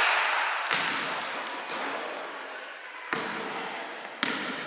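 A basketball bouncing on a hard sports-hall floor: a few separate sharp bounces, about a second in, about three seconds in and again near the end, each echoing around the large hall.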